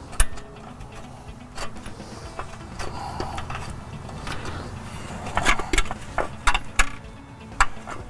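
Scattered metallic clicks and knocks as steel hub bolts are handled and started by hand into a wheel hub assembly on a truck's steering knuckle, with a quick cluster of them past the middle.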